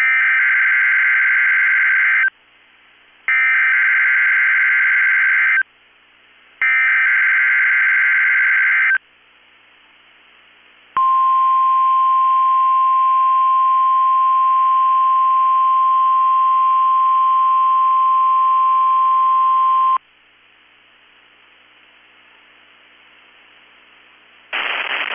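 NOAA Weather Radio Emergency Alert System test signal: three bursts of the SAME digital header, each about two seconds long with a second's pause between, then the steady 1050 Hz warning alarm tone held for about nine seconds. A faint hiss follows until a voice starts near the end.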